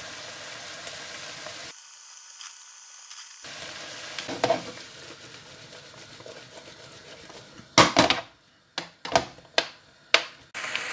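Minced beef and mushrooms sizzling in olive oil in a frying pan, with stirring. Near the end the sizzle drops away and about five sharp knocks follow.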